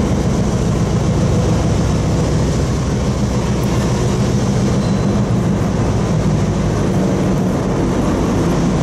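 EMD end-cab diesel switcher locomotive running steadily as it rolls slowly forward pulling freight cars, its engine a constant low drone.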